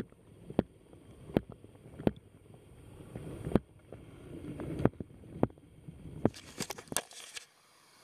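Underwater audio in a creek: sharp clicks and knocks, about one a second, over a low, shifting water noise. A quick flurry of clicks comes near the end, and the sound then cuts off.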